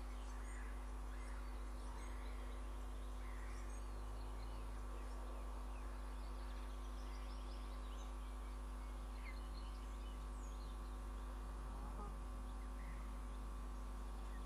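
Steady electrical hum from the nest camera's audio feed, with faint short bird chirps scattered through it.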